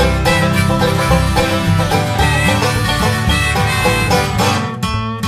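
Background music: an instrumental stretch of a song between sung verses.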